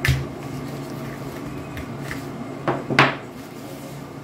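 Pruning shears snapping shut through a shrimp-plant stem: one sharp clack at the start, then two more knocks close together about three seconds in.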